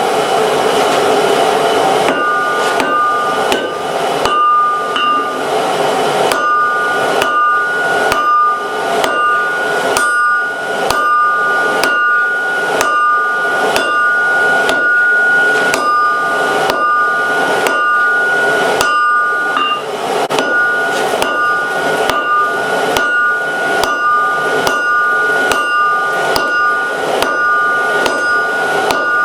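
Hand hammer striking hot steel on an anvil in a steady rhythm, about one to two blows a second, each blow leaving a clear two-note anvil ring. A steady rushing noise comes just before the hammering starts, about two seconds in.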